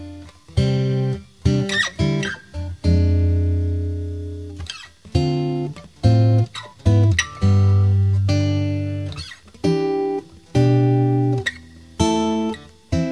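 Background music on acoustic guitar: a slow run of plucked notes and strummed chords, each ringing out and fading.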